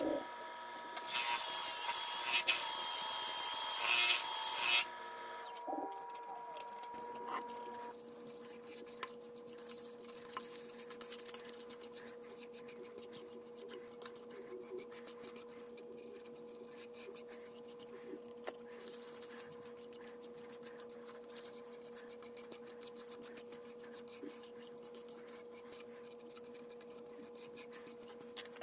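A drill-driven sanding disc hisses loudly against an ash bowl spinning on a Laguna Revo wood lathe, stopping about five seconds in. After that the lathe runs with a steady hum, and a cloth held to the spinning winged bowl makes rapid light ticking and rubbing.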